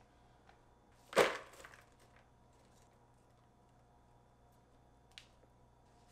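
Kitchen handling sounds while a plastic bowl on a scale is filled with shredded vegetables: one sharp knock about a second in with a short rustle after it, then a light click near the end, over quiet room tone.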